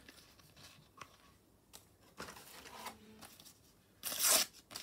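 A Panini sticker packet torn open with a short, loud rip about four seconds in, after a few soft rustles and clicks of stickers being handled.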